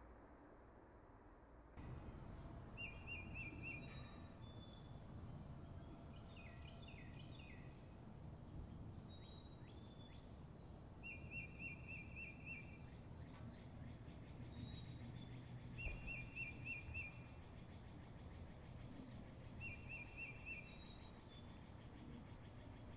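Outdoor ambience of songbirds: a short, fast trill repeated every few seconds, with high down-slurred whistles and scattered chirps over a low steady rumble. It starts about two seconds in, after quiet room tone.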